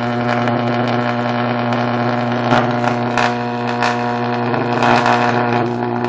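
High-voltage arc drawn from two microwave oven transformers wired in series, buzzing loudly at mains frequency with irregular crackles. It is a high-current arc at around 4,200 volts.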